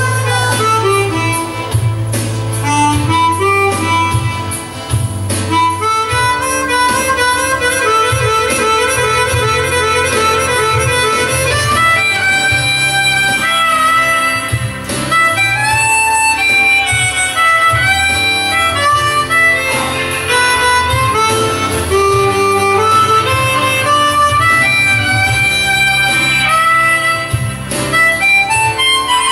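Harmonica playing a melody of held and moving notes over low sustained notes.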